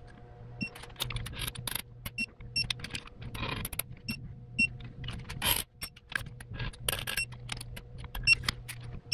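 Ratchet of a digital torque wrench clicking in quick runs of strokes as the EJ25 block's case-half bolts are pulled up to 25 ft-lb, with short high electronic beeps from the wrench now and then.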